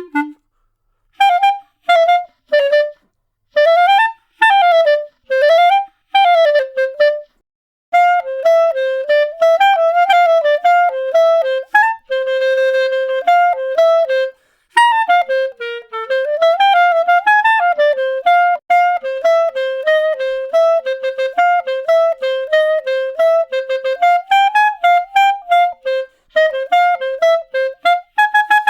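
Solo clarinet playing a melody. It plays short phrases separated by brief pauses for the first seven seconds or so, then a nearly continuous run of quick notes, with one long held note about halfway through.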